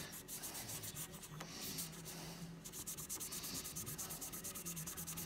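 A cloth rubbed briskly back and forth over a small browned steel rifle part, buffing off the excess of a fresh coat of browning solution. The strokes are uneven at first, then settle about halfway through into a fast, even rhythm of several strokes a second.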